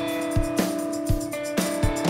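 Rock band playing an instrumental intro: a kick drum beating regularly under sustained notes, with cymbals ringing above.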